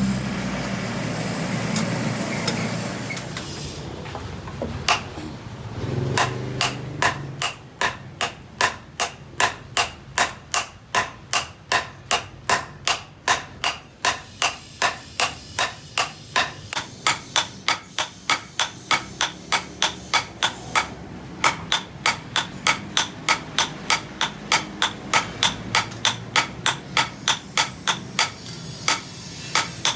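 Hammer striking metal on an anvil in a steady run of blows, about two a second, as when hand-forging a knife blade. A motor-like drone fades out in the first few seconds before the hammering starts.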